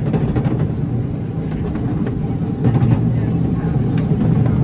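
Narrow gauge steam train running, heard from a carriage behind the locomotive: a steady low rumble of wheels on the track with occasional clicks and knocks.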